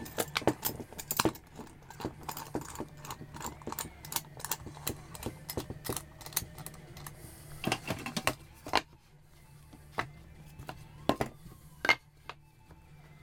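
Small irregular clicks and knocks of a steel G-clamp and pine boards being handled against a wooden cigar box as a home-made tobacco press is clamped up. Quick and dense for the first eight seconds or so, then a few separate sharp clicks near the end, over a low steady hum.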